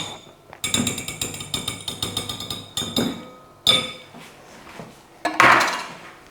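A kitchen utensil strikes a bowl, which rings on clearly and fades over a few seconds. A second strike rings a little under four seconds in, and a brief scrape follows near the end.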